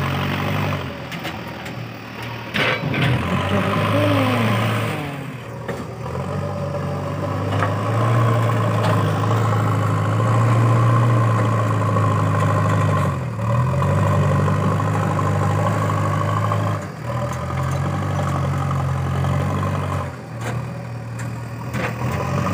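JCB 3DX backhoe loader's diesel engine running under load as it scoops and lifts soil with its front bucket, the engine speed rising and falling with the work and dipping briefly about 13 seconds in.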